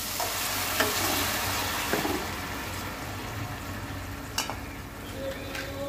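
Water poured into hot mustard oil and spice-fried onions in a steel pot, setting off a hissing sizzle that dies down over a few seconds as it settles to a simmer. A few light clicks come through the sizzle.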